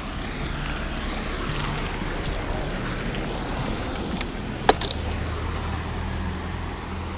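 Steady outdoor rushing noise with a low steady hum beneath it, and one sharp click about four and a half seconds in.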